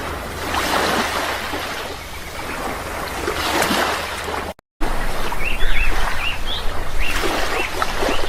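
Sea waves washing in, a steady rushing surf that swells and eases. A little past halfway the sound cuts out for a moment and comes back louder, with small birds chirping repeatedly over the surf.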